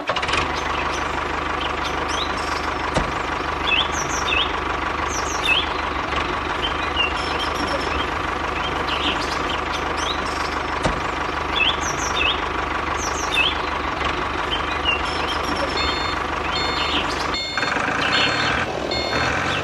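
Steady mechanical running noise, like a small motor, with short high chirps every second or so. Near the end the sound changes and a run of short high beeps comes in.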